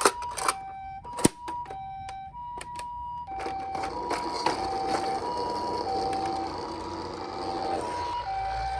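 Toy ambulance minicar's electronic two-tone siren, the Japanese-style hi-lo 'pee-po', alternating between a high and a low tone about every half second. Sharp clicks and knocks come in the first three seconds, then a steady rushing noise runs under the siren.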